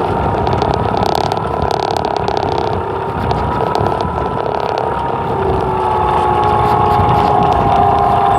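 Propeller aircraft's motor running steadily, its pitch dropping slightly about five seconds in, with low wind rumble on the microphone.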